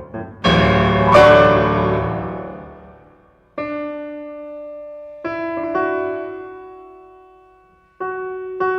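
Solo piano music: a loud, dense chord struck about half a second in rings and fades, followed by sparse single notes and soft chords, each left to ring out and die away.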